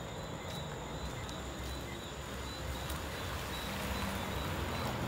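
Low, steady vehicle engine rumble, getting a little louder toward the end.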